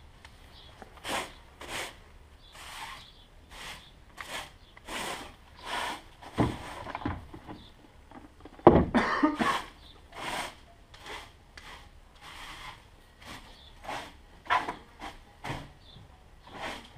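Stiff bristles scrubbing over sawn wooden boards in repeated short strokes, one or two a second, with two heavier knocks about six and nine seconds in.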